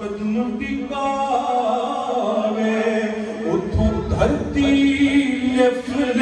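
A male voice sings a Punjabi naat in long, wavering melismatic lines over a steady low drone.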